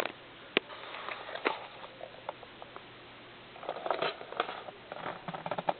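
Scattered sharp clicks and taps, with two bursts of rustling and rapid clicking, the second near the end.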